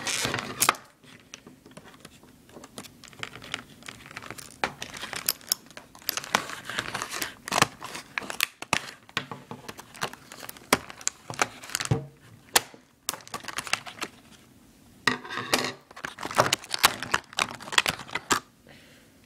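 Tool packaging being crinkled and torn open by hand, with irregular clicks and rustles, as the ratchet is freed from its package.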